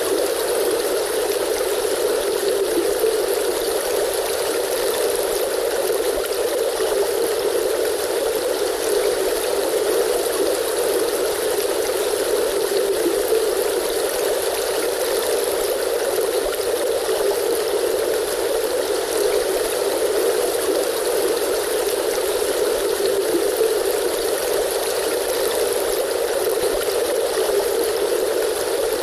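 A river stream's flowing water, an even, unbroken rushing with little deep rumble.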